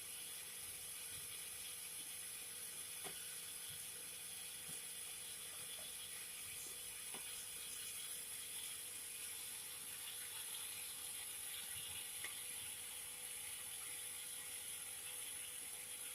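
Cotton candy machines running: a steady hiss with a faint, even hum, and a few faint ticks.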